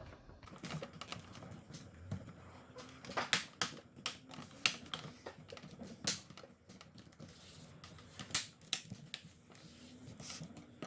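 Plastic laptop screen bezel being pressed back on, its tabs snapping into place with a series of sharp, irregular clicks, a few louder snaps among them.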